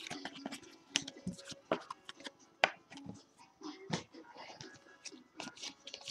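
Hockey trading cards handled and flipped through by hand: faint, irregular clicks and slides of card stock.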